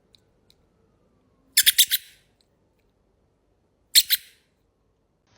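Squeaky toy ball being squeezed in short high squeaks: a quick run of about four about a second and a half in, then two more about four seconds in.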